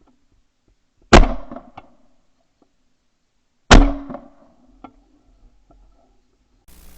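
Two shotgun shots about two and a half seconds apart, a pair fired at clay targets. Each is a sharp, loud report with a short ringing tail, followed by a few faint clicks.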